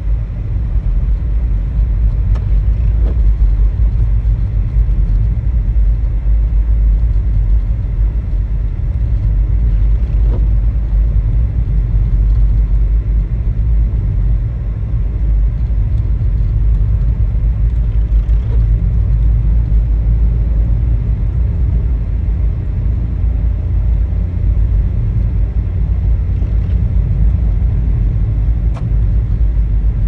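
Steady low rumble inside a moving car's cabin on a snow-covered road: tyre, engine and wind noise, with a few faint ticks.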